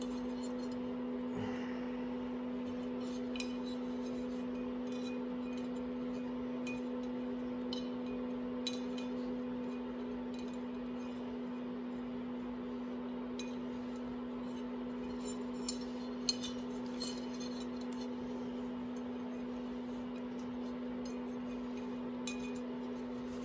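Light metallic clinks and taps, scattered and irregular, as the stator cover is handled and fitted on a dirt bike engine, over a steady electrical hum.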